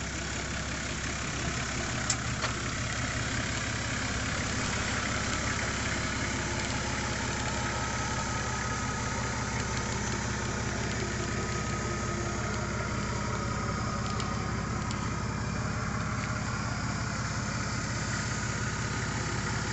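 Nissan Patrol GU turbo-diesel engine idling steadily while the vehicle sits flexed up on a tyre, with two light clicks about two seconds in.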